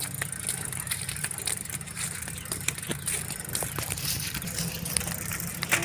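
A bicycle wheeled along a paved road, ticking and rattling, over a steady low engine hum from an approaching bus.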